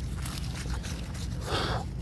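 Hands digging and scraping in garden soil among leaves, with a short louder rustle about one and a half seconds in.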